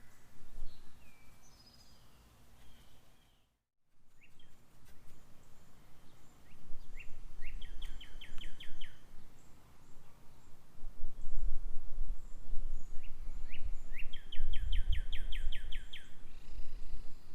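A songbird singing two fast trills, each a run of about eight quick descending notes, the second about six seconds after the first. A low outdoor rumble runs underneath, and the audio drops out briefly a few seconds in.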